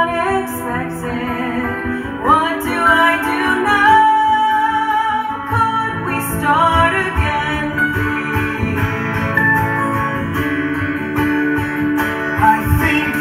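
Live acoustic music: a steel-string acoustic guitar strummed, with a second plucked string instrument, accompanying a woman singing.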